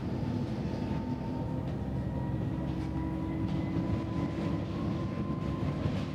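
Bus diesel engine and drivetrain running under way, heard from inside the bus: a steady rumble with a thin whine that rises slightly as the bus picks up speed, and light rattles.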